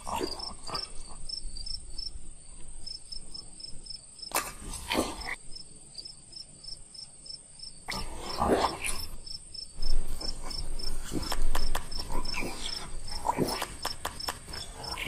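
Insects chirping steadily, a high chirp repeating at an even rhythm over a constant high hum. A few louder, short, lower sounds break in about five, eight and thirteen seconds in.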